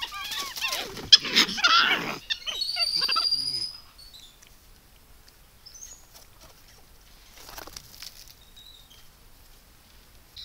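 Capuchin monkeys calling: a burst of rapid squealing calls that rise and fall in pitch over the first two seconds, then a high, steady whistled note, and after that only faint calls. The calls are those of agitated monkeys in a squabble.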